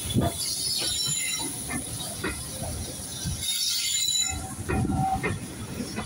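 A steam-hauled train of coaches rolling past behind BR Standard 4MT tank locomotive No 80151, its wheels clicking over the rail joints about once or twice a second under a steady hiss of steam. Brief wheel squeals come near the end.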